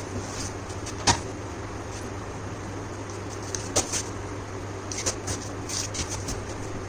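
Cardboard box being handled and its flaps pulled open: a sharp knock about a second in, another near the middle, then a run of smaller scrapes and rustles near the end, over a steady low hum.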